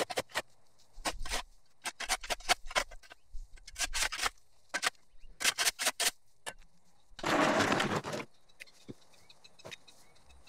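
Shovel blade chopping and scraping overgrown turf and dirt off a concrete sidewalk edge: a run of short, sharp scrapes and knocks, with one longer, louder scrape of about a second around seven seconds in.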